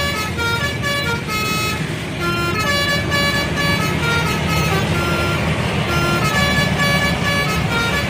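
Bus 'telolet' multi-tone horn playing a quick tune of short notes that step up and down in pitch without a break, over the steady low rumble of the bus engine.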